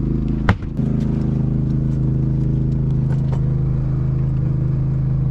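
Steady low engine hum from the gigging boat. A sharp knock about half a second in, and a few light clicks around three seconds.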